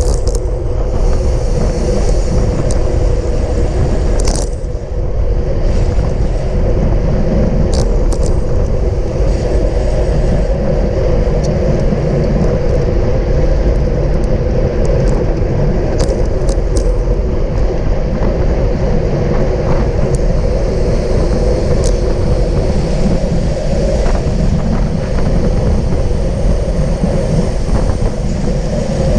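Steady wind rush and road noise on a bicycle-mounted action camera during fast riding in a bike race, with a few sharp clicks and rattles here and there.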